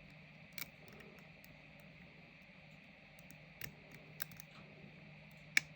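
Faint, scattered clicks of a lock pick working the pins of a padlock core re-pinned with Dormakaba pins, with a sharper click near the end as a pin sets.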